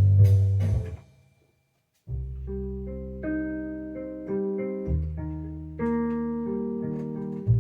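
Keyboard music: a full chord rings and fades away within the first second, then about a second of silence. From about two seconds in, a new passage of held piano-style chords begins, changing about once a second.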